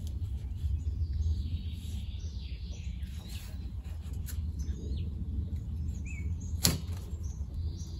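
Dry birch bark being torn and crumbled into small pieces by hand: light crackling rustles with a few sharp snaps, the loudest about two-thirds through, over a steady low rumble.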